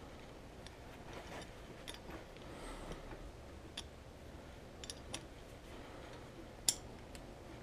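Faint, scattered metal clicks and clinks as a winch hook and its pin are fitted onto the end of the winch cable, with one sharper click near the end.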